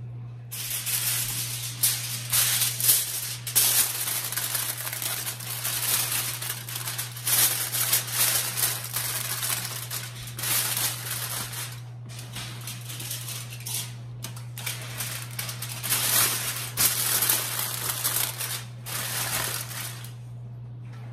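A sheet of aluminium foil crinkling and rustling as it is spread and pressed down by hand, in bursts with a couple of brief pauses.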